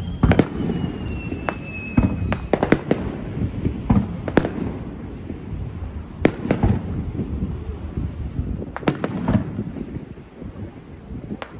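Aerial firework shells bursting one after another, a string of sharp bangs with a low rumble between them. A thin whistle, slowly falling in pitch, runs through the first two and a half seconds.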